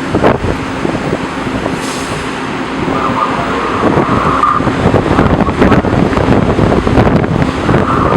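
Strong hurricane wind buffeting the microphone, a loud, uneven rumble with knocks, over a faint steady low hum.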